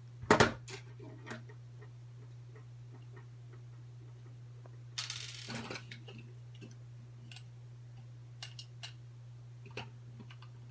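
Small clicks and taps of cheap plastic headphone parts being handled and worked apart, with a sharp knock just after the start and a short scraping rustle about five seconds in. A steady low hum runs underneath.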